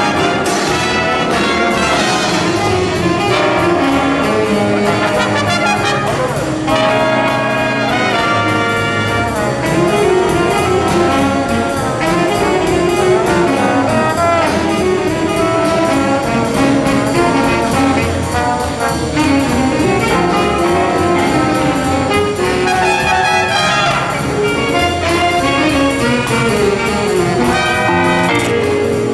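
Youth jazz big band playing live: trumpets, trombones and saxophones over a rhythm section with piano and upright bass.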